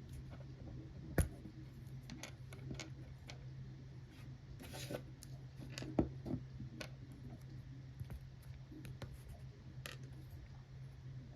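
Small plastic clicks and scrapes of a Lamy cartridge converter being taken apart by hand, with two sharper clicks, about a second in and about six seconds in, over a steady low hum.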